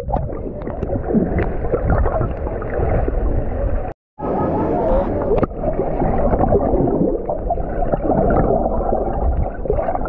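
Muffled underwater sound from below the surface: water churning and gurgling with bubbles and small crackles. The sound cuts out briefly about four seconds in.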